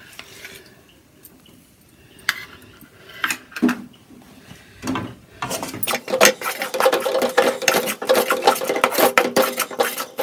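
A perforated steel ladle scraping and clicking against an aluminium kadai as a thick roasted gram paste is stirred. A few separate scrapes at first, then from about halfway rapid, continuous stirring strokes.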